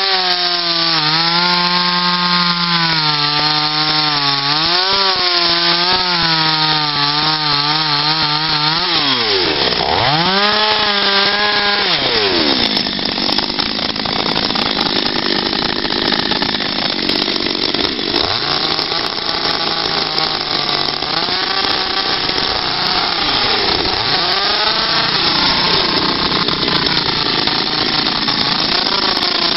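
Patriot two-stroke petrol chainsaw running at high revs while carving into a wooden block, its pitch wavering as the chain bites. About nine seconds in, the engine drops almost to idle and revs back up, then runs more unevenly, the revs rising and falling several times.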